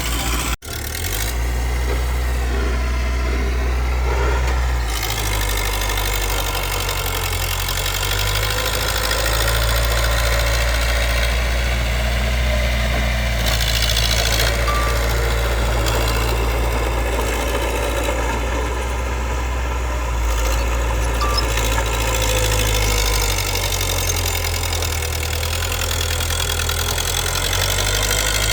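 Diesel engine of a small bulldozer running steadily, its speed stepping up and down as it works. There is a brief break in the sound about half a second in.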